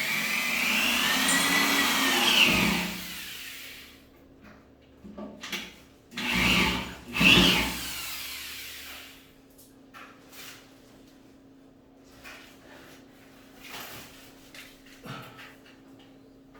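Power drill running in bursts: a run of about two and a half seconds whose pitch rises and then falls, then two short bursts about six and seven seconds in. Faint knocks and handling follow.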